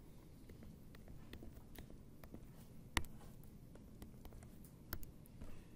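A few faint clicks and taps of a stylus on a tablet screen while drawing, the sharpest about three seconds in and another near five seconds, over a low steady room hum.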